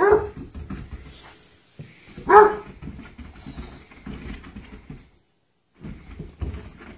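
Beagle giving two short yelping barks about two and a half seconds apart, heard through a glass door, with soft scuffs and knocks in between.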